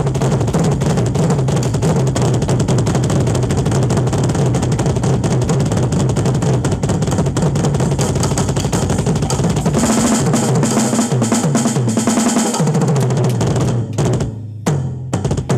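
Drum kit played hard and fast with sticks in a solo: a dense, continuous run of drum and bass-drum strokes. About ten seconds in the bass drops out and the playing turns brighter for a couple of seconds. Near the end it thins to a few scattered hits, then picks up again.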